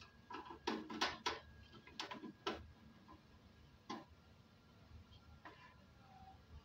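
Hand screwdriver clicking and ticking against the screws of a welding machine's sheet-metal case as they are undone: a quick run of light clicks in the first couple of seconds, another about four seconds in, then fainter ones.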